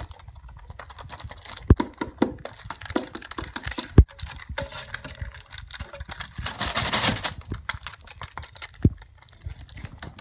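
Close-up clicking, tapping and clattering of household objects being grabbed and moved by hand, with a few sharp knocks and a short rustle in the middle.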